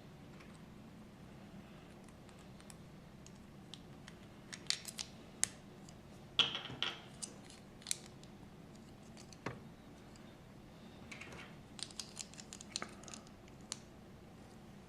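Plastic LEGO pieces clicking and rattling as they are handled and pressed together: scattered sharp clicks starting about four seconds in, a short scrape around the middle, and a quick run of small clicks near the end.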